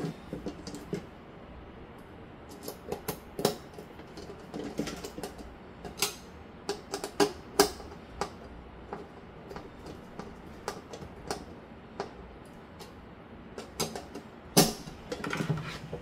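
Irregular sharp metal clicks and knocks of a vertical GPU mount bracket being pushed and worked into a PC case to seat it without play. The clicks come in clusters, with the loudest knock near the end.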